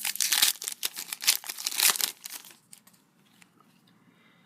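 Crinkling and rustling of a trading card pack's wrapper and cards being handled, dense crackle for about two and a half seconds, then it falls quiet.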